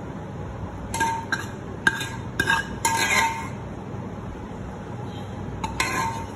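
Steel ladle clinking against a steel cooking pot: a quick run of short ringing clinks in the first half, and two more near the end.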